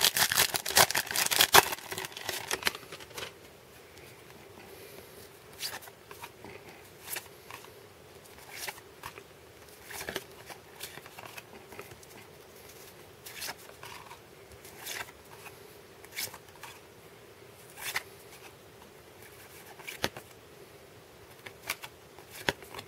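Baseball card pack torn open with a dense crackle of wrapper for the first few seconds, then trading cards flicked through one by one, a short sharp card snap about every second and a half.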